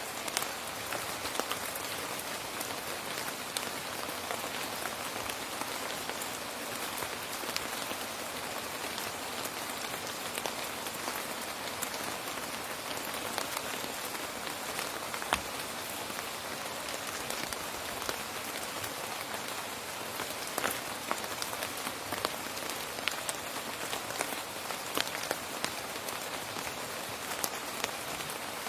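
Steady rain falling on a surface, a dense even hiss with many distinct drops ticking and pattering through it.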